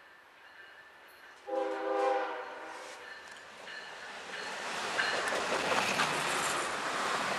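Norfolk Southern freight 212's lead GE ES40DC locomotive gives one short horn blast about a second and a half in, a horn salute to the trackside watcher. From about four seconds in, the lead locomotives pass close by, the diesels running and the wheels clattering over the rails, growing louder.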